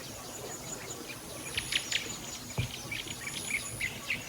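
Small birds chirping, many short quick chirps that grow busier about halfway through, over a faint high insect-like drone that comes and goes. A single soft thump about the middle.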